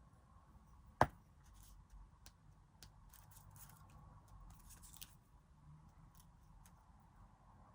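Sticker packets and paper being handled: one sharp click about a second in, then faint rustles and small scattered clicks.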